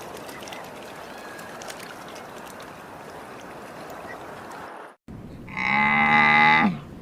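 An even hiss for nearly five seconds that cuts off abruptly, then a single loud, drawn-out livestock call of just over a second, steady in pitch and dropping at the end.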